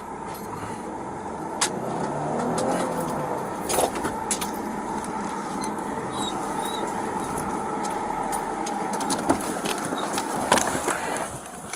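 Police patrol car driving: steady road and engine noise, with a few sharp clicks and knocks.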